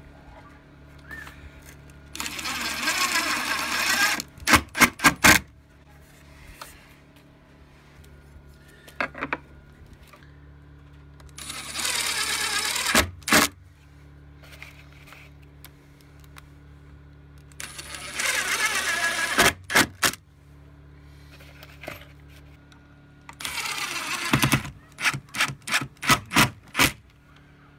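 Cordless drill (screw gun) driving screws through a steel door hinge into a wooden door jamb, four separate runs of one to two seconds each. Each run ends in a quick series of short, louder pulses.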